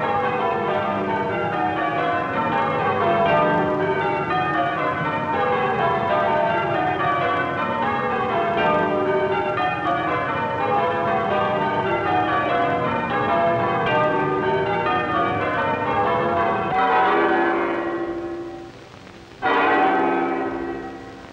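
Church bells ringing changes: many bells struck one after another in repeated descending runs. Near the end the runs give way to separate full strokes that ring out and die away, about two and a half seconds apart.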